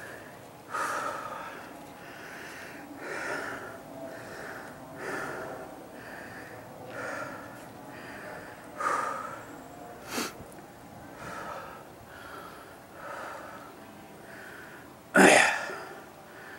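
A person panting hard from the exertion of a steep stair climb, breaths in and out about once a second, with a sharp click about ten seconds in and one loud burst near the end.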